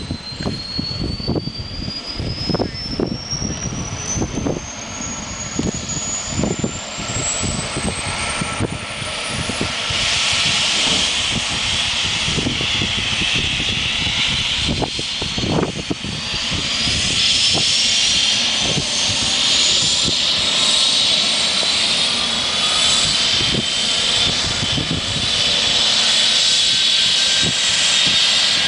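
Air ambulance helicopter's turbine engines running on the ground before takeoff, a high whine that rises steadily in pitch and grows louder about ten seconds in and again near seventeen seconds.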